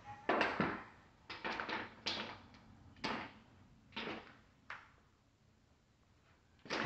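Small wooden toy blocks knocking and clattering as they are picked up and dropped into a toy canister: a handful of scattered sharp knocks over the first five seconds, then quiet.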